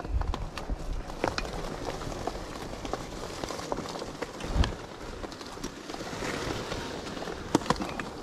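Twigs and brush crackling and snapping as something pushes through undergrowth, with scattered sharp snaps and a few low thuds, one near the start and one about four and a half seconds in.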